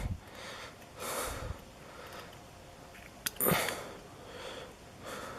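A man sniffing and breathing softly, with one sharp click about three seconds in followed by a brief voiced sound.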